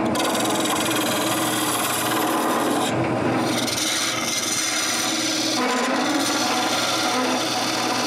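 Wood lathe turning a wooden blank while a hand-held turning tool cuts a recess into its end grain: a steady scraping, shaving sound with the lathe's low running hum beneath it.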